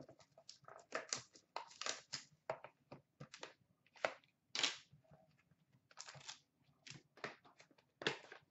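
A sealed hockey card box being opened by hand: plastic wrap tearing and crinkling and cardboard rustling, in a string of irregular short crackles.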